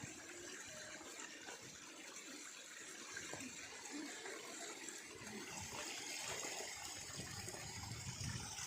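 Running water, a steady rush that grows a little louder toward the end.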